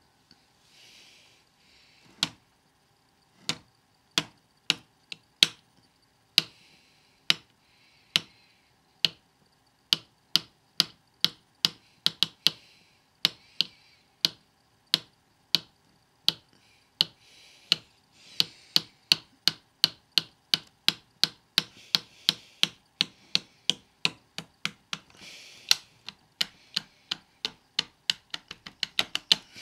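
Sharp taps on a ping pong bat fitted with a contact mic, the knocks that trigger its edge-lit LED pattern. They come a second or more apart at first, about one a second through the middle, quicken to about two a second past the halfway point, and end in a quick run.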